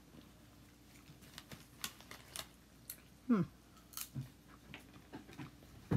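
Quiet chewing of a crusty sandwich roll with new implant-retained dentures: a scattering of small crisp clicks and crunches. A brief falling voice sound comes about three seconds in.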